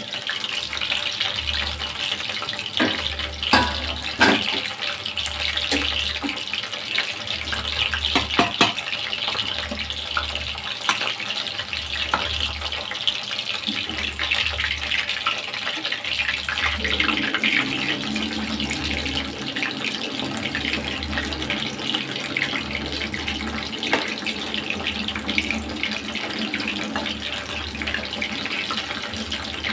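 Batter-coated chicken pieces deep-frying in hot oil in a kadai: a steady sizzle with crackles and pops, and a few sharper knocks in the first nine seconds.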